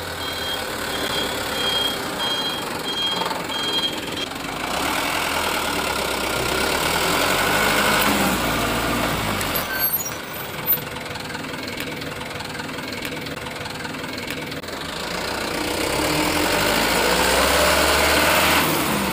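Truck engine running steadily, with reversing beeps, about two a second, in the first four seconds. The engine swells louder around the middle and again near the end, with a single sharp knock shortly after the middle.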